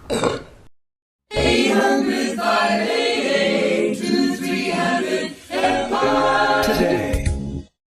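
An edited-in clip of a choir singing a cappella, several voices in harmony, lasting about six seconds. It starts and stops abruptly, with dead silence on either side.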